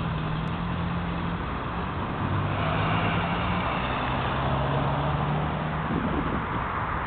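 Steady road traffic noise with a low engine hum underneath.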